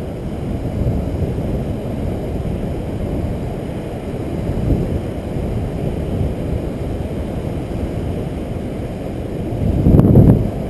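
Wind buffeting the microphone as a steady low rumble, with a stronger gust near the end.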